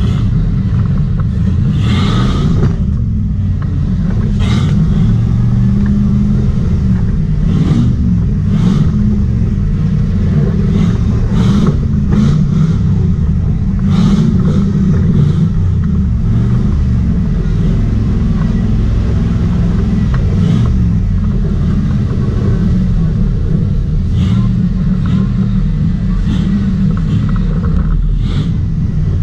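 Jeep Wrangler's engine running with a steady low rumble as it crawls over a rocky trail, with scattered knocks and clunks from the tyres and chassis on the rocks.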